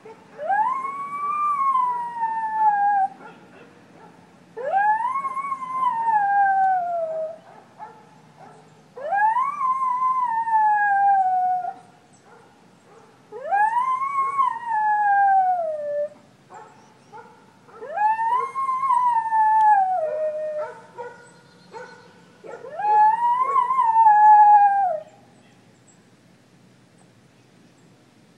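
A dog howling six times, each howl rising quickly and then falling slowly over two to three seconds, with short pauses between them.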